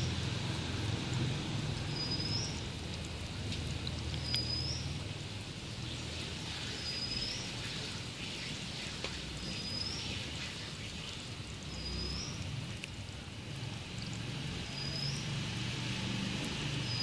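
Aquarium air line bubbling and splashing at the water surface, a steady watery patter with a low rumble underneath. A short, high, upward chirp repeats evenly about every two and a half seconds.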